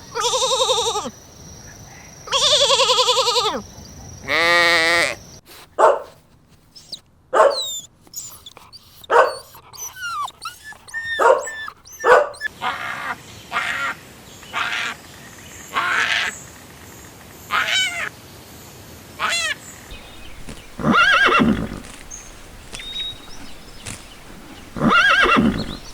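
A series of animal calls: long bleats in the first few seconds, then a string of short, varied cries with rising and falling pitch, and two louder calls near the end.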